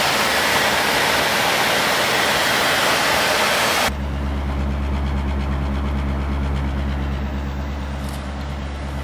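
1977 Cadillac Eldorado's V8 idling. For the first four seconds there is a loud, even rush from the engine bay. Then, abruptly, the sound is a steady low hum from the exhaust at the tailpipe.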